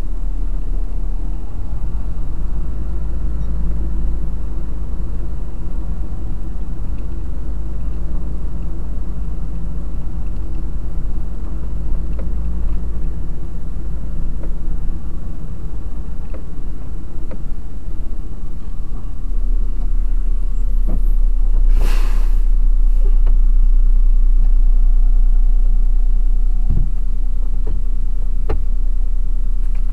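Truck engine running at low speed, heard from inside the cab as the truck creeps forward and comes to a stop. A short hiss sounds about two-thirds of the way in.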